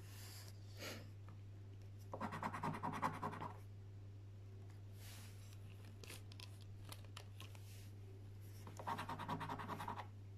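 A coin scratching the latex coating off a Mega Cashword scratchcard in two bursts of quick rubbing strokes, the first about two seconds in and the second near the end, with a few light scrapes between.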